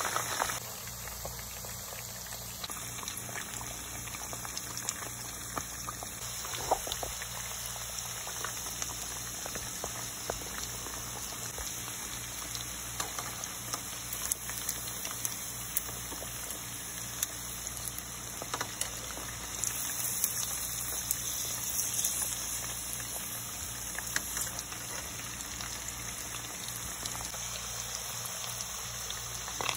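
Pig tails deep-frying in hot oil in a pot: a steady sizzle dotted with many small pops and crackles.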